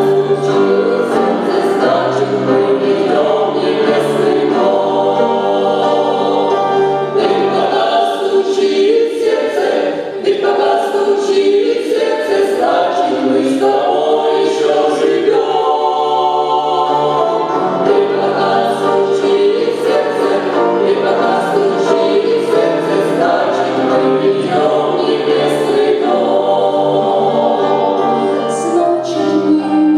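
Church choir singing a Christian song, with sustained voices throughout.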